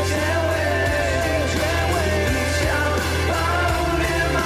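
Male boy band singing a Mandarin pop song live, one male voice carrying the melody over amplified band backing with a steady bass.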